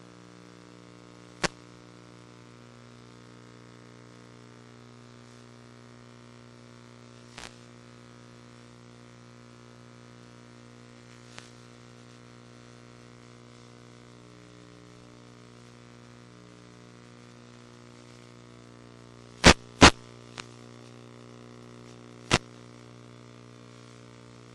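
Steady electrical hum with a fixed pitch, broken by a few sharp clicks: single clicks early and mid-way, then a loud pair of clicks close together and one more near the end.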